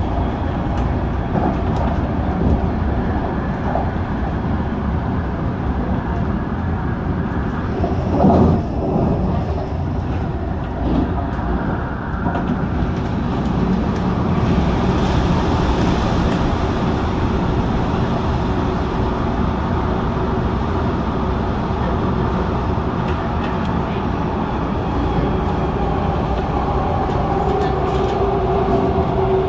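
MTR Tung Chung Line CAF electric train running, heard from inside the car: steady rolling and running noise with a brief loud knock about eight seconds in. Near the end a pitched motor whine comes up and falls slightly.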